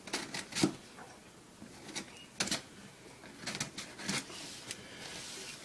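A knife blade scraping and slicing through packing tape on a cardboard box, in a series of short, sharp strokes.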